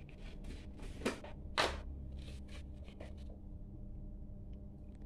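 Thin plastic bag crinkling and rustling as it is handled and opened, in a string of short bursts, the loudest about one and a half seconds in.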